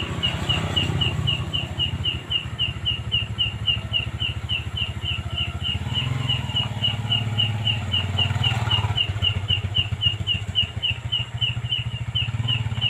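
Strange high-pitched chirping from a jackfruit tree, one short chirp repeated steadily about three or four times a second, which the speaker thinks may be a grasshopper hiding in the tree. Under it runs a low, steady, engine-like rumble.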